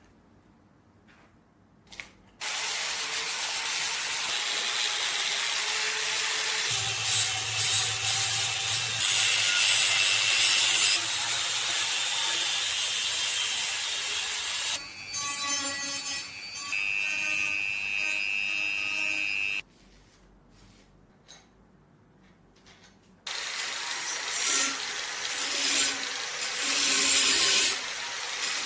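Workshop tool noise in several short cuts: steady rubbing and scraping with a powered tool running for a stretch, broken by a near-silent pause near the start and another in the middle.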